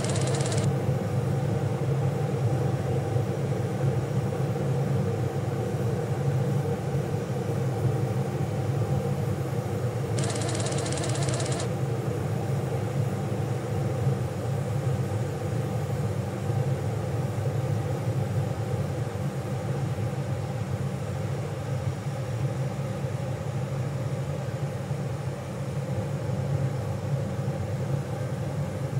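A steady low machine hum, with a short burst of hiss at the very start and another about ten seconds in.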